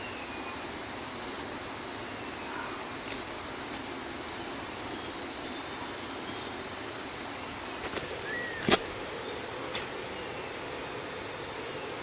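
Rainforest background with a steady high insect drone that fades out about halfway through. Later come a few sharp snaps, the loudest just under nine seconds in, as the fibrous core of a rotten palm stump is torn apart by hand.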